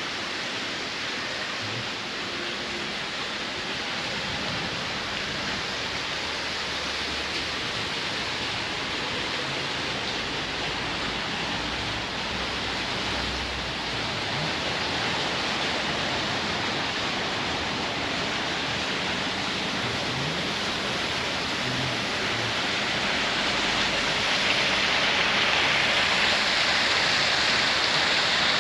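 Steady rushing noise, getting louder near the end.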